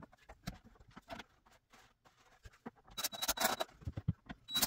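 Clamps and tools handled against the wooden cabinet tops: scattered light knocks and clicks, with two short rasping bursts, one about three seconds in and one near the end.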